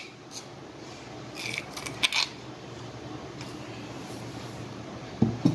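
Metal spoon clinking and scraping against a stainless steel bowl of mashed boiled potatoes: a few short clinks, most of them bunched about one and a half to two seconds in, over a low steady hum.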